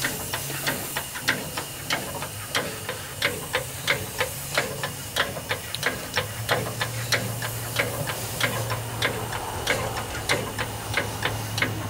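Bronze hand feed pump being worked to pump water into a steam boiler, clicking in an even rhythm of about three clicks a second. A low steady hum comes in about halfway through.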